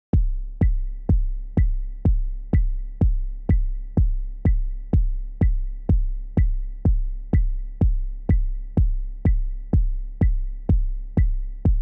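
Electronic dance music with a steady kick-drum beat, about two beats a second, each beat topped by a short high note over a low bass line.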